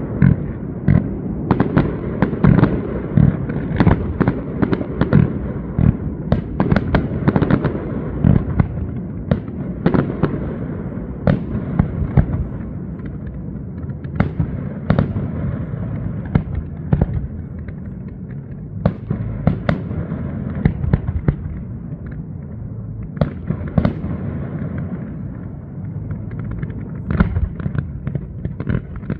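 Fireworks display: an irregular string of bangs and crackles, several a second, over a continuous low rumble.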